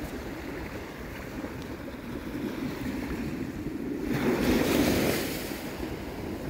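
Ocean surf on the beach with wind buffeting the microphone; the wash of the surf swells louder about four seconds in, then eases.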